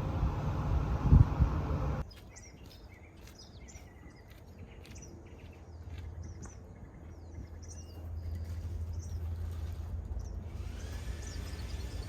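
Birds chirping in short high calls after a steady rushing noise with a sharp knock cuts off abruptly about two seconds in; a low steady hum comes in later.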